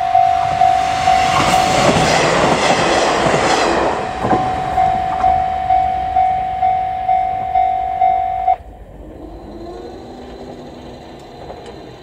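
Japanese level-crossing alarm bell ringing about twice a second as a two-car KiHa 48 and KiHa 47 diesel railcar train passes close by, its engine and wheels loudest about two to four seconds in. The bell cuts off suddenly about eight and a half seconds in, leaving the quieter rumble of the diesel railcars moving away.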